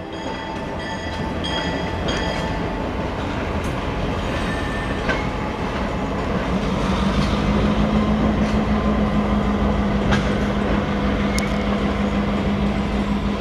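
Diesel locomotive and passenger coaches rolling past: a steady rumble of wheels on rail with scattered clicks, and a low engine drone that comes in about halfway and grows louder as the locomotive nears.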